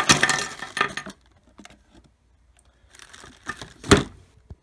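Packaging and small plastic accessories being handled: rustling and clicking in two bouts with a short pause between, and a sharp knock about four seconds in.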